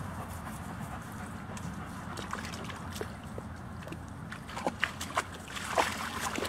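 Two German Shepherds moving through grass and brush: a steady rustling noise, with a few short sharp clicks and squeaks in the second half.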